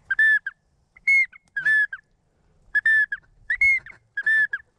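Short whistled duck calls: about six clear, high notes, each bending slightly up and then down, in quick, uneven succession.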